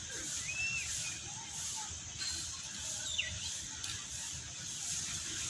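Outdoor ambience: a few short whistled bird calls, one arching and one falling in pitch, over a steady high hiss and a low rumble.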